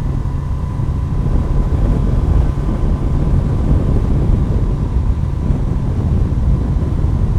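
Steady wind rush over the microphone and low rumble from a motorcycle moving along the road.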